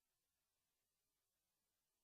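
Silence: no audible sound, only a faint, even background hiss.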